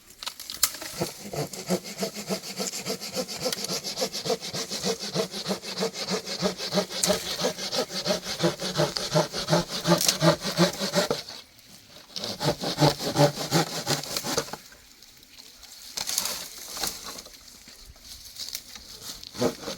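Rapid, even rasping strokes in runs: a long run that stops about eleven seconds in, a shorter one a second later, and a brief burst near sixteen seconds.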